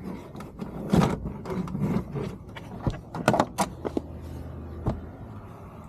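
Handling clatter as a car's cargo-area panels and covers are opened up: a string of sharp knocks and clicks with light rattling, loudest about a second in and again near the middle.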